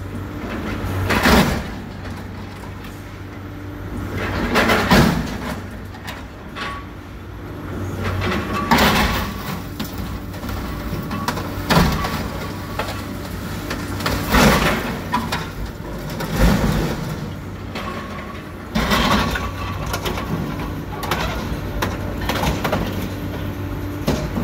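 Sennebogen material handler's diesel engine running steadily while its grapple crushes and tears an armored truck's steel body, with repeated loud crunches and screeches of metal about every three seconds.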